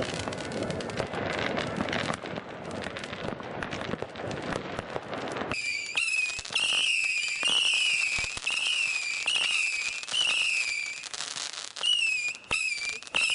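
Fireworks: about five seconds of dense crackling bangs, then a rapid series of shrill whistles, each about half a second long and wavering in pitch, at roughly one and a half a second, with pops between them and a short break near the end.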